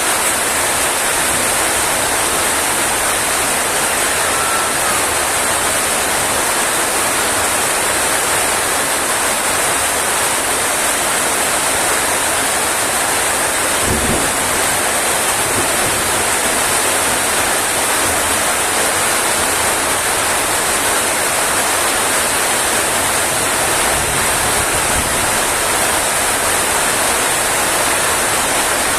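Rain falling steadily, a dense even hiss, with one brief low thud about halfway through.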